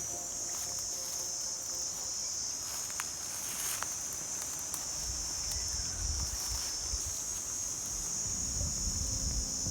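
Steady, high-pitched insect chorus, with a low rumble joining about halfway through.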